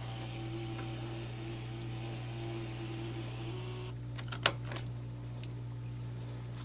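MakeID E1 thermal label printer running its feed motor with a steady whir as it prints and feeds out a label, stopping about four seconds in. Then a few sharp clicks, one louder snap among them, as the label is cut off.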